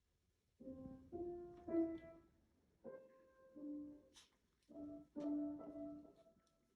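Soft background music: a slow melody of held, steady notes in short phrases, starting about half a second in.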